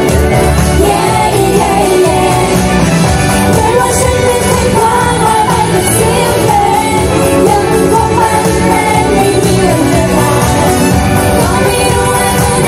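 Pop music with women's voices singing a melody over full backing instrumentation.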